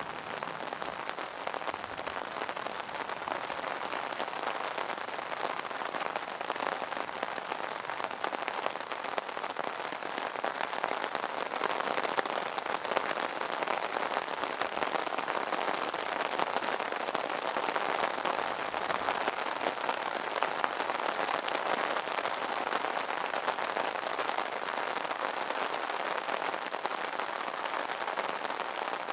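Steady rain pattering on an umbrella canopy, a dense hiss of many small drop impacts.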